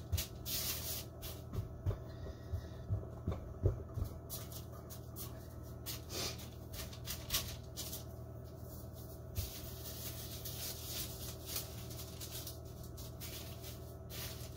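Hands shaping pizza dough on parchment paper: irregular soft rustling and crinkling of the paper with a few light knocks on the counter in the first few seconds, over a steady low hum.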